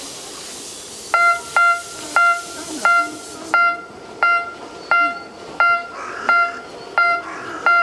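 Electronic railway crossing warning signal sounding a steady beep about one and a half times a second, starting about a second in, as the miniature steam train approaches. Steam hissing from the locomotive underneath, stopping about three and a half seconds in.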